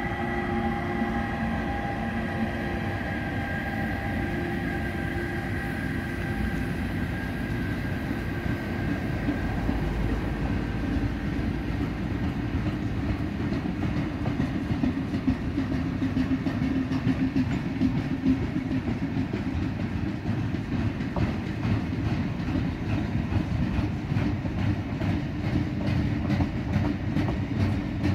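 RENFE Class 253 electric locomotive running past with a steady whine of several tones that fades over the first several seconds, followed by its train of loaded container wagons rolling by, steel wheels on rail with a steady hum and regular clickety-clack over rail joints that grows stronger in the second half.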